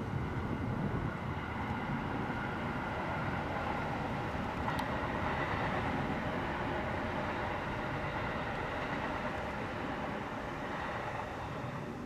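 Steady rumble of distant traffic, with one brief click about five seconds in.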